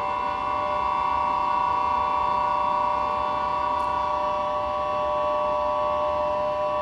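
Several recorders sounded by air-conditioner airflow through pipes, holding a cluster of steady overlapping tones over the low rush of the air conditioners' fans.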